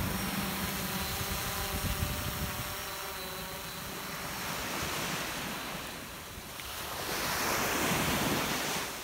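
Quadcopter fishing drone's propellers humming as it climbs away, the hum fading over the first few seconds. A broad rushing noise swells near the end and cuts off sharply.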